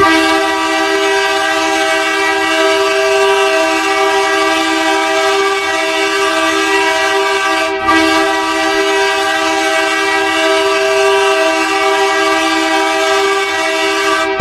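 Hockey goal horn, a multi-tone air horn, sounding one long continuous blast of several steady tones held in a chord, with a brief dip about eight seconds in.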